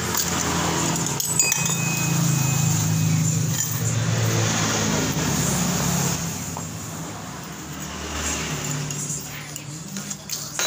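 A motor vehicle engine runs steadily in the background, fading after about six seconds and picking up again near the end, with a metal clink about a second in.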